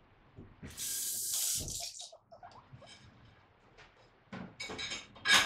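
Water running for about a second and a half, then a few short clinks and knocks, the loudest near the end.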